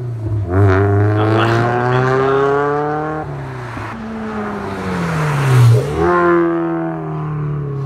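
Mazda MX-5 NC's four-cylinder engine breathing through a decat manifold, 200-cell midpipe and Cobra Sport race back box, accelerating hard: the pitch climbs, drops at a gear change about three seconds in, and climbs again. The note is very raspy.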